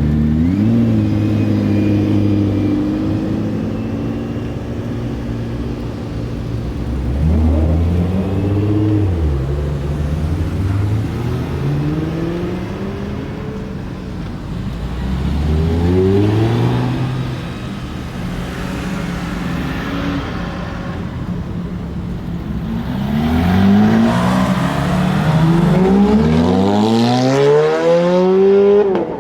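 A supercar's engine revving and accelerating hard, its pitch climbing in several sweeps, the longest and highest near the end before it drops off sharply.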